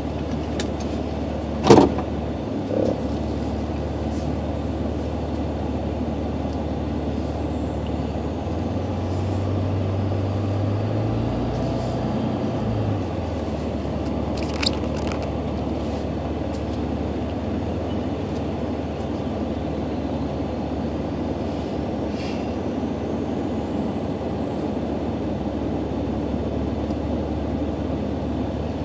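Car driving at steady speed, heard from inside the cabin: an even rumble of road and engine noise. A sharp knock comes about two seconds in, and a faint click about halfway through.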